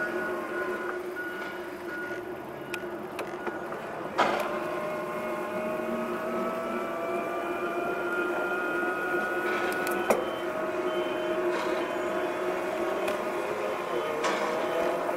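A bike being ridden gives a steady mechanical whine of several tones, some slowly drifting in pitch, with three short sharp knocks spread through it.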